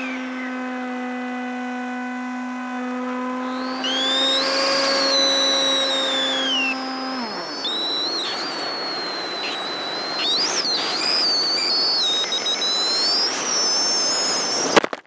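Multiplex EasyStar RC plane's electric motor and pusher propeller whining at a steady pitch, then winding down about seven seconds in as the power is cut. Rushing air and a high wavering whistle follow as the plane dives nose-down, ending in a sharp crash impact near the end, after which the sound cuts out.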